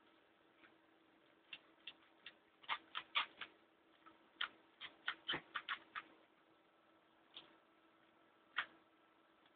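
An Ericsson electronic unit clicking irregularly, single clicks and quick clusters of several, over a faint steady hum. The clicking, together with its blinking lights, is the sign of a fault.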